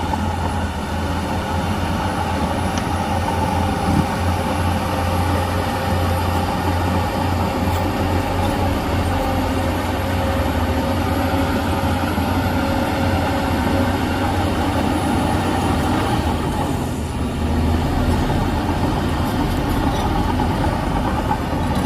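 Heavy diesel engine of earthmoving machinery running steadily under load, with a strong low hum and a brief easing about three quarters of the way through.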